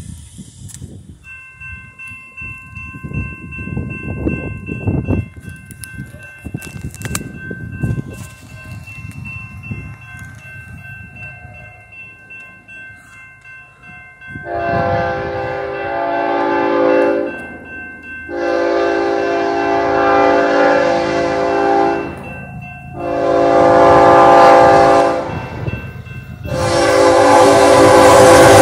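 A BNSF freight locomotive's air horn sounds the grade-crossing signal, several notes at once: two long blasts, a short one, then a final long blast still sounding at the end and louder as the train nears. The horn begins about halfway through; before it there is only street noise and wind.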